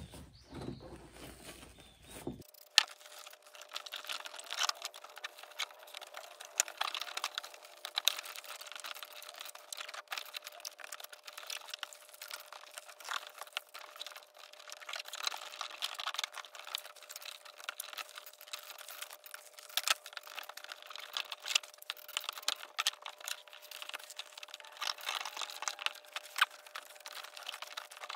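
Fabric crackling and rustling as hands press and smooth it onto a spray-glued door trim panel, many small irregular crackles and ticks, with a faint steady tone underneath.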